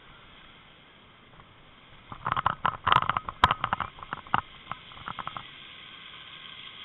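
Bicycle crunching and rattling over rutted ice and slush: a burst of irregular sharp clicks and crackles that starts about two seconds in and lasts a few seconds. Near the end a steady hiss builds as a car drives close on the wet road.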